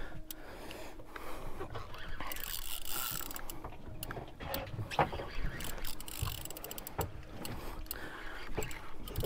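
Spinning reel worked against a hooked fish: the reel's gears and rapid mechanical clicking, in short runs with scattered single clicks between.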